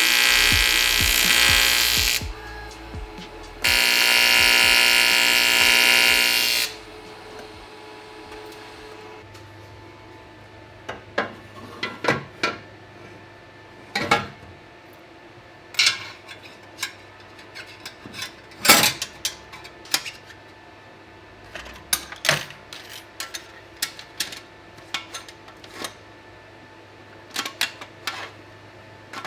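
A high-pitched electric power tool runs in two bursts of a few seconds each near the start, then a string of light knocks and metallic clinks follows as parts and tools are handled.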